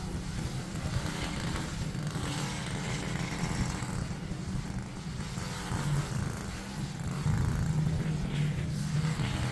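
Small petrol engine of lawn equipment running steadily, a little louder in the last few seconds.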